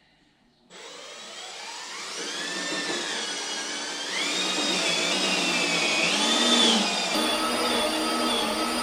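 Electric power tool motor running, its pitch rising and shifting as its speed changes under load, getting louder over the first few seconds.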